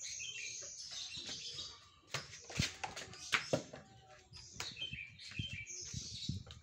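Small birds chirping, with a few sharp knocks and clatters in the middle.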